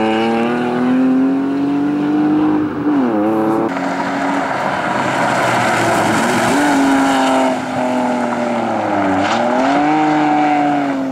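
BMW 323i's straight-six engine revving hard and held high, its pitch dipping briefly about three seconds in and again near nine seconds. For a few seconds in the middle, tyres squeal and scrub on concrete as the car slides.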